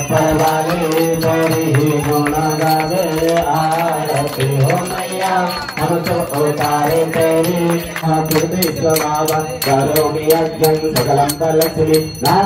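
Devotional Hindu chanting sung to music, a melodic voice line over a steady low drone, with small repeated metallic strikes running through it.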